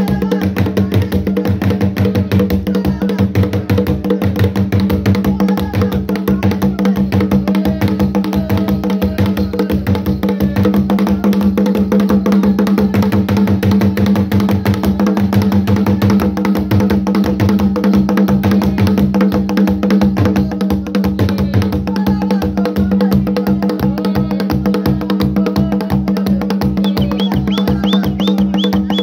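Dance music with a fast, steady drum beat over a held low tone. A brief high warbling sound comes in near the end.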